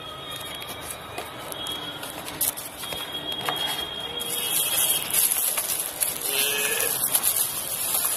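Cardboard box being opened, with a few light taps and scrapes, then bubble-wrap packaging crinkling and rustling under the hands, louder and denser from about halfway in.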